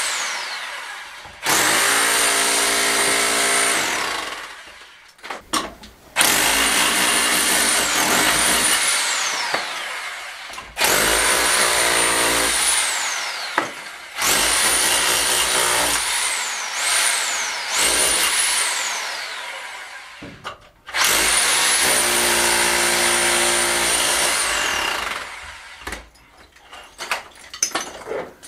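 Electric SDS-plus rotary hammer in chisel-only mode, a flat chisel hammering at a stone wall, in about six bursts of two to three seconds. Each burst cuts off with the motor's whine falling as it winds down, and a few light knocks follow near the end.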